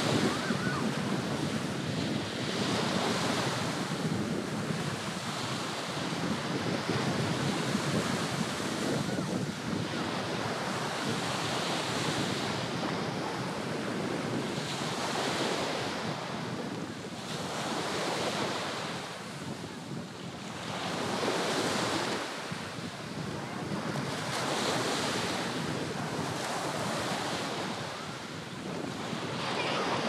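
Small surf breaking and washing up on a sandy beach, swelling and fading every few seconds, with wind buffeting the microphone.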